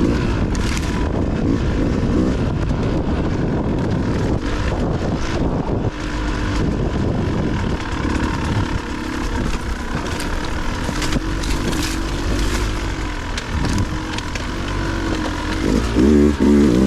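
Dirt bike engine running on a trail ride, its pitch rising and falling as the throttle is worked. The revs rise and fall harder near the end.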